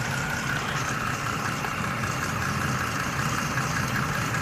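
A 2020 Chrysler Pacifica's 3.6-litre V6 idling steadily with its newly replaced radiator, while the cooling system is checked for leaks.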